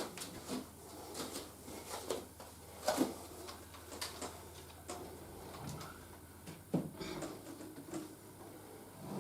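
Plastic Lego pieces clicking and knocking in irregular short taps as a built Lego model is handled and set down, with a few louder knocks.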